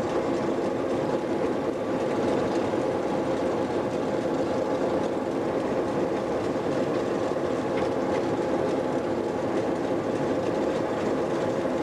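Lxd2 narrow-gauge diesel-hydraulic locomotive running steadily under way, its engine droning evenly, with the wheels running on the rails.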